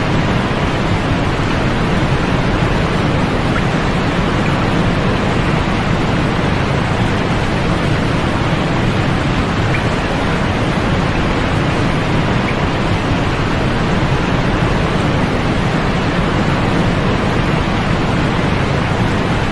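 Steady synthetic white-noise sleep track: an even, unchanging hiss, with more weight in the low end than at the top.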